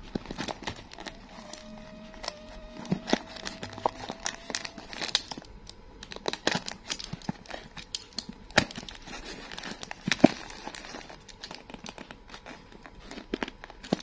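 Plastic courier mailer bag being pulled and torn open around a cardboard box: irregular crinkling and tearing with scattered sharp crackles.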